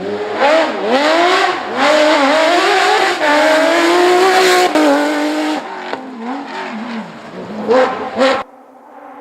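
Porsche 911 GT3 rally car's flat-six engine under hard acceleration, its pitch rising and dropping through gear changes and held high for a few seconds. It then comes off the throttle with two short, loud bursts of revs. The sound cuts off abruptly before the end.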